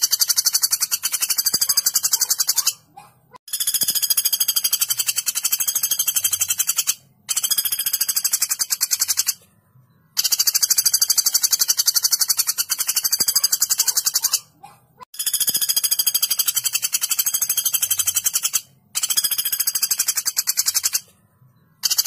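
Common flameback woodpecker (pelatuk bawang) giving long, sharp, rapid rattling trills one after another, each two to four seconds long with short breaks between.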